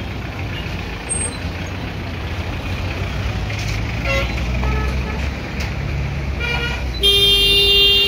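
Street traffic with vehicle engines running at low speed, and a vehicle horn sounding one long blast about seven seconds in, the loudest sound here.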